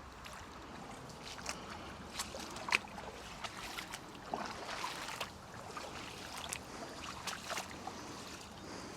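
A person wading through shallow river water, with irregular sloshing splashes from each step over a steady wash of moving water.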